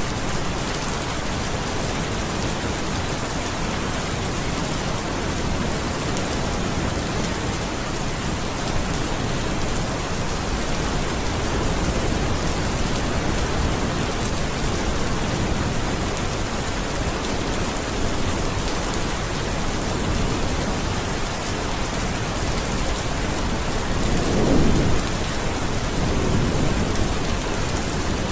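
Steady rain falling, an even hiss and patter, with a short low rumble of thunder about three-quarters of the way through.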